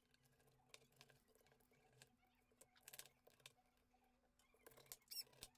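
Near silence: room tone with a faint steady hum and a few faint, light taps and rustles, most of them around the middle and near the end.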